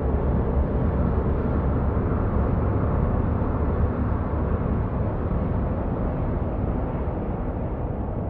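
Dark industrial ambient drone: a steady, dense low rumble, heaviest in the bass, with no clear tones or beats, growing slowly quieter toward the end.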